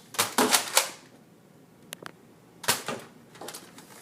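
Toy foam-dart blaster being fired: a quick run of four sharp snaps in the first second, then scattered single clicks and snaps, the loudest about two and a half seconds in.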